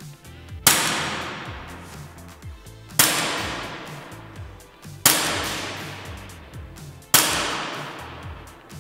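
Four shots from an ASG CZ P-10C CO2 blowback airsoft pistol, about two seconds apart, each ringing on and dying away slowly over background music.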